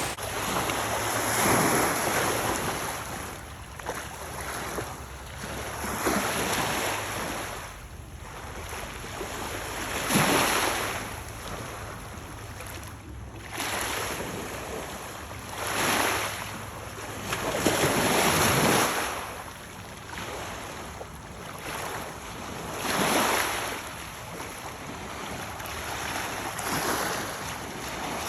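Small waves washing onto a lake shore, the hiss of water swelling and fading every few seconds.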